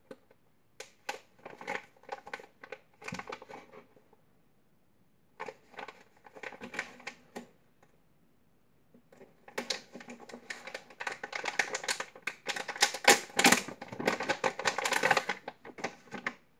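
Foil-and-plastic packaging bag crinkling and crackling as it is handled and opened, in short bursts at first, then a longer, louder stretch of crinkling from about nine and a half seconds in.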